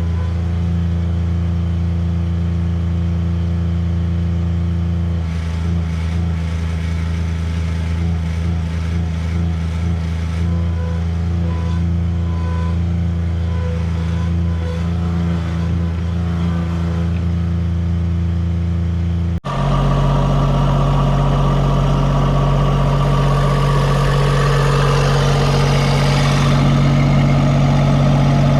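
Bobcat 553 skid steer's diesel engine running steadily at a low, even pitch. After a sudden cut about two-thirds of the way through, it runs faster: higher in pitch, louder, with more clatter.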